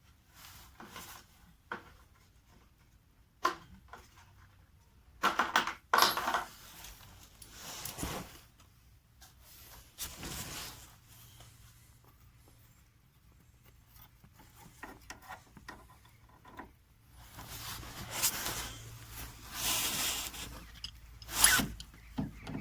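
Hand tools working on a car's front anti-roll bar mounts while its fasteners are tightened: irregular metal clinks, scraping and rubbing, with a few sharp knocks, one about three and a half seconds in and one near the end.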